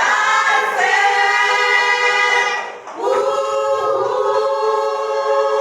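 Gospel choir singing, holding long sustained chords in two phrases with a short breath about three seconds in.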